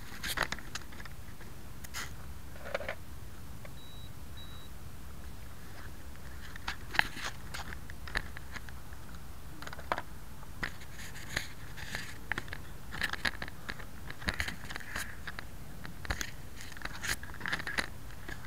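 Handling noise on a drone-mounted keychain camera: scattered clicks, knocks and rustles of fabric as the small quadcopter is carried and held against a shirt, with no steady motor sound. Two brief faint high beeps about four seconds in.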